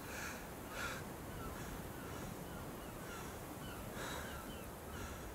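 Faint birds calling: many short, falling chirps repeat throughout, with a few harsher, noisier calls near the start and again about four seconds in.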